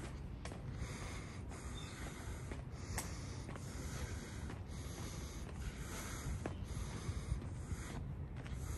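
Outdoor ambience: a steady rushing hiss over an uneven rumbling low end, with a few faint clicks.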